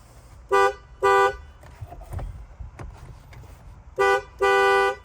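Second-generation Cadillac CTS-V's horn honked four times: two short taps, then after a pause a short tap and a longer one, each a steady pitch. The horn is being tested through the newly installed steering wheel pad and works.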